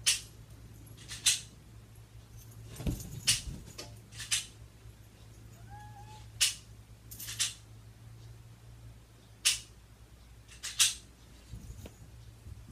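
Gen 4 Glock 19 dry-fired with a LaserLyte laser training cartridge in the chamber: about ten sharp, separate clicks a second or two apart, as the trigger breaks and the slide is worked to reset it. A faint short squeak sounds about six seconds in.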